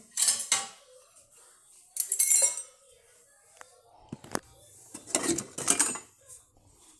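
Dishes and cups clinking and clattering as they are handled, in several separate bursts a second or two apart.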